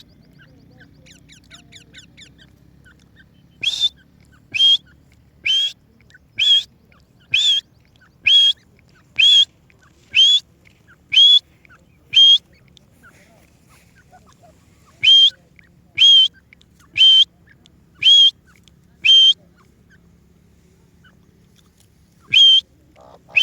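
Partridge calling: short, sharp, whistled calls, each with a quick hooked pitch, repeated about once a second. A run of ten is followed by a pause, then five more, and a single call near the end, with faint soft twittering near the start.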